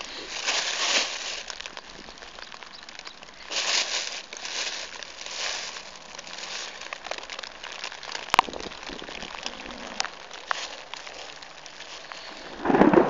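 Plastic carrier bag rustling and crinkling in several bursts as it is handled. Two sharp clicks come near the end.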